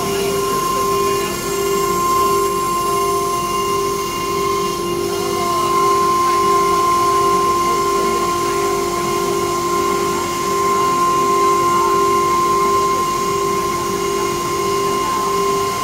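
Wood CNC router running. Its spindles and drives give a loud, steady whine with a second, higher tone above it, and a pulsing beat of about twice a second.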